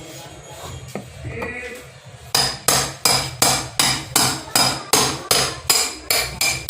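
Hammer blows on a sealed Sukam 135 Ah inverter battery case as it is broken open. After a couple of scattered knocks, a steady run of about twelve blows comes at nearly three a second, each with a short metallic ring.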